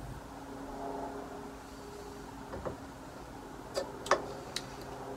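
A few light clicks and knocks from about two and a half to four and a half seconds in, as a stemmed beer glass is set down on a wooden table and the can is handled, over a steady low hum.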